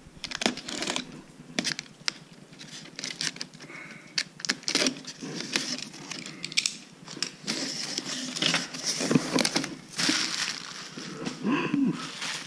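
Cardboard box flaps being pulled open and plastic bags and bubble wrap being handled, making irregular rustling, crinkling and scraping, busiest past the middle.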